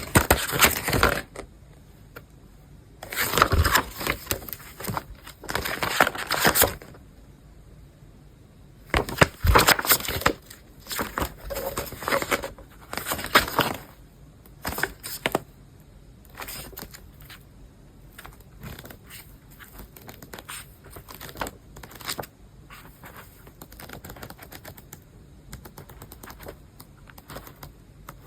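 Packaging being handled: crinkling and rustling in bursts of a second or two, with taps and scrapes of items being moved. Sparser, quieter clicks and handling noises make up the second half.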